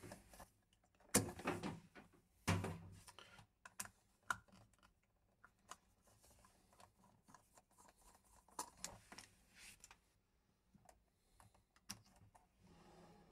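Light clicks, knocks and scrapes of hands and a small screwdriver working on a plastic wall socket as its plug is pulled out and its cover plate is unscrewed. Two louder knocks come in the first three seconds, then scattered faint clicks.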